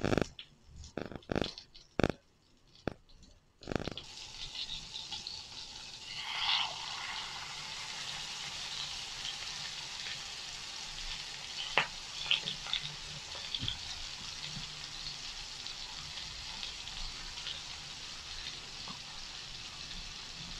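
Turtle doves frying in foaming melted butter in a frying pan: a steady sizzle. A few separate clicks and knocks come first, and the sizzle starts about four seconds in.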